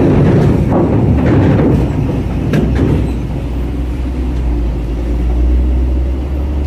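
Truck engine running as it drives off the ferry ramp, with a deep steady drone that firms up about halfway through. A sharp clank comes about two and a half seconds in. The truck clears the ramp without scraping.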